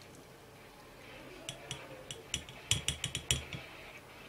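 Glass and a small metal mesh strainer clinking together on a glass mug as the liquid is strained. It is a quick, irregular run of about a dozen light clinks with a few dull knocks, starting about a second and a half in.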